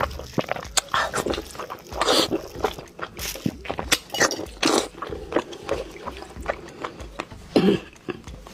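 Close-up eating sounds: chewing, biting and crunching food in a string of short crisp bursts, with background music underneath.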